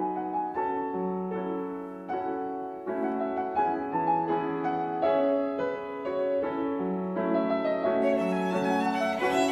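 Solo violin playing a melody of held notes over piano and a small string ensemble with cello, swelling louder near the end.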